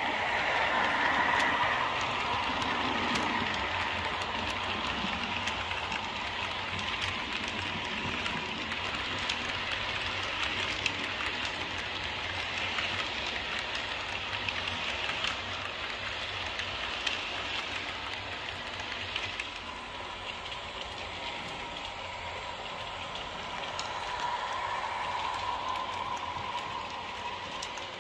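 H0-scale model train running along the layout track: a steady whirring of its motor and wheels with a thin whine through it and scattered small clicks.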